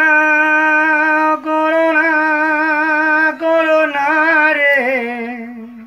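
A man singing a Bengali folk-style song unaccompanied, holding three long notes with vibrato, broken by two short pauses. The last note wavers and falls before fading out near the end.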